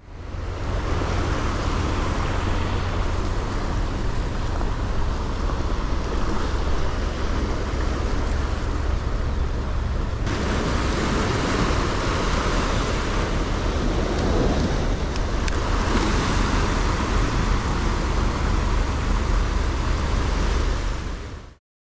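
Sea surf washing over coastal rocks, with wind buffeting the microphone in a heavy low rumble. The hiss of the water grows brighter about halfway through.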